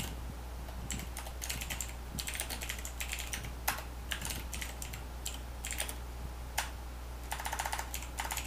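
Typing on a computer keyboard: scattered keystrokes, with a quick run of keys about seven seconds in and again near the end, over a low steady hum.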